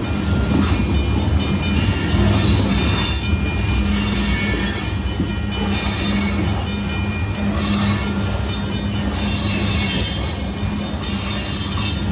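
Union Pacific gravel train rolling past: a steady rumble of freight-car wheels on the rails, with recurring higher-pitched metallic squeal and clatter.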